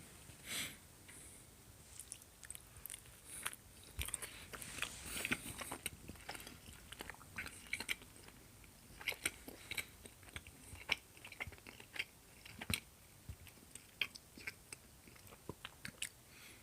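A person chewing a bite of breadstick dipped in marinara sauce: quiet, irregular chewing clicks and smacks, close to the microphone.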